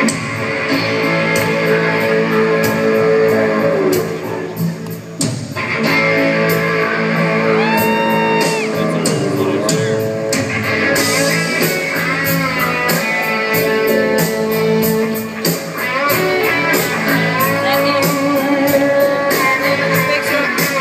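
Live rock band playing an instrumental passage: electric guitar lead with bent notes over a steady drum beat.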